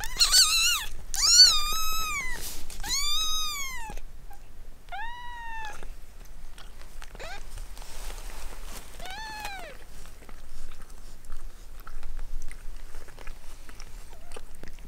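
A week-old kitten mewing: about six thin, high-pitched mews, each rising and then falling. Four come close together at the start and two more follow a few seconds apart, while the mother cat licks it.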